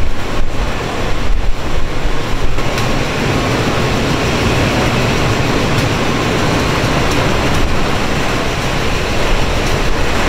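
Steady loud rushing of air in a −36 °C walk-in ice-core storage freezer, the sound of its refrigeration fans circulating the cold air. A few knocks come in the first two and a half seconds.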